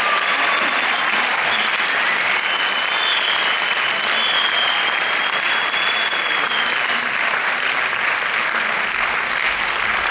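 Audience applauding steadily, with a high wavering whistle-like tone over the clapping for a few seconds in the middle.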